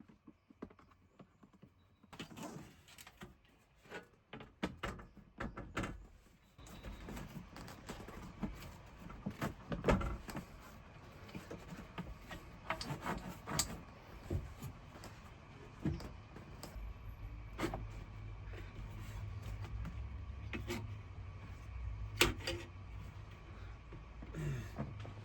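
Scattered metal clicks, knocks and rattles of hand tools and bolts as a swivel seat base plate is being fastened. A low steady hum joins about two-thirds of the way through.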